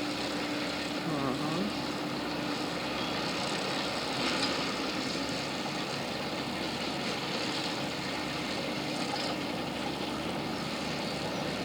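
Farm tractor working a round hay baler, its engine running steadily as a continuous drone with a low, even hum.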